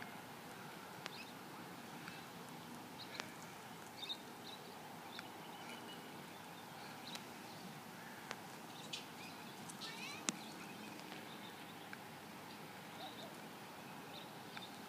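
Faint outdoor evening ambience with scattered short bird chirps over a steady low hiss, a brief flurry of chirps about ten seconds in, and a few sharp clicks.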